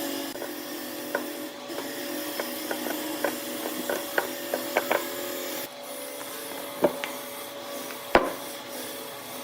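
Rubbing and scraping on wood, with a faint steady hum underneath and scattered light ticks and taps. The rubbing stops a little past halfway, and two sharper knocks follow.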